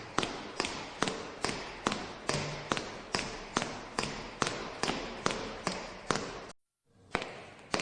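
Evenly spaced sharp taps, about two a second, each dying away quickly, with a short break of silence near the end.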